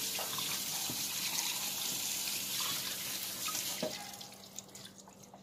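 Kitchen sink tap running, the water splashing over a raw whole chicken as it is rinsed. The flow stops about four seconds in, leaving a few faint drips.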